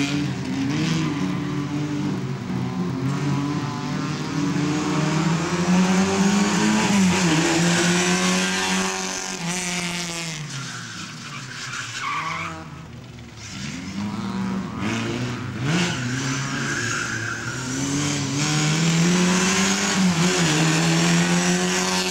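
A Lada saloon's engine revving hard, rising and falling over and over as it is driven through slalom gates, with its tyres squealing through the turns. It grows quieter around the middle of the run, then louder again.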